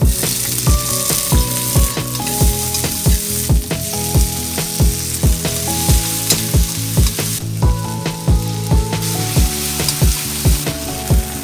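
Onion, garlic, cherry tomatoes and spring onion sizzling in hot oil in a stainless steel wok, the sizzle jumping up as they go in and stirred with a metal ladle. Background music with a steady thumping beat plays underneath.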